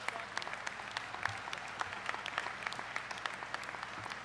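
An audience clapping steadily: many overlapping hand claps from a crowd.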